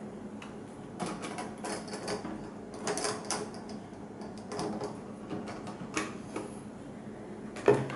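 Scattered light clicks and knocks of a model steam locomotive and tender being handled and set down on model railway track.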